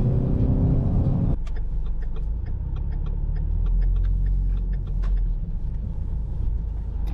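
A car running with a steady deep rumble. A higher pitched layer drops out abruptly about a second and a half in, and scattered light ticks follow through the rest.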